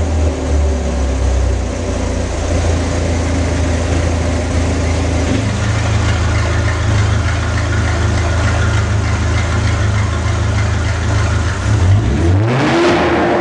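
Ferrari engine through an Fi aftermarket exhaust with its valves open, running at a steady idle. Near the end it is revved sharply, the pitch rising fast and the sound getting louder, up toward 5000 rpm.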